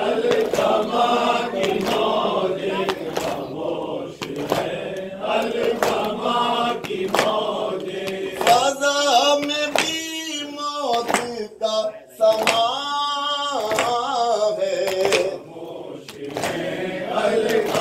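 Men chanting a mourning noha together, with palms striking chests in a steady beat of about one strike a second (matam). Midway a single voice leads with long held lines.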